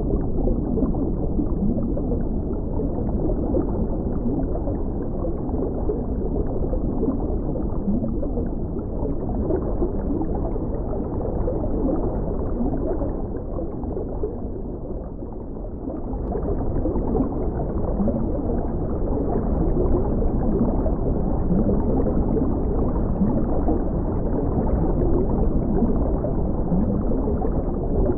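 Underwater ambience: a steady, dull, low rush of water with bubbling and gurgling, easing off briefly about halfway through.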